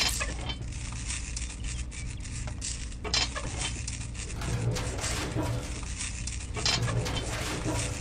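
Soft rustling and small irregular clicks of hands handling jute twine and small cloth sacks, pulling the twine tight and tying it down over a model truck's load, over a steady low hum.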